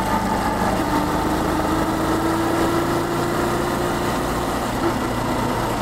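Honda Cross Cub 110's air-cooled single-cylinder four-stroke engine running while riding, heard from the rider's seat with wind and road noise. Its note rises gently over the first few seconds and eases off about four seconds in.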